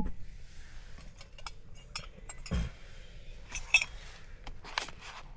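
Light clinks and taps of camping cookware and utensils being handled, with a soft thump about halfway through and a sharper metallic clink a little before the end.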